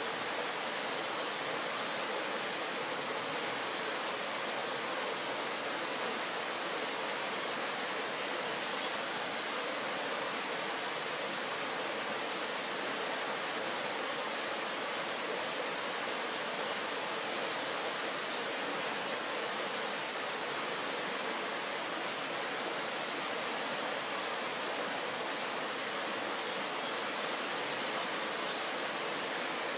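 Shallow mountain stream rushing steadily over a stony bed, an even, unbroken sound of flowing water.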